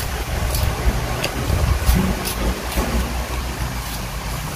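Steady low rumble of an electric fan running, with a handful of short clicks and scrapes as a metal spoon scoops the flesh out of a mango half.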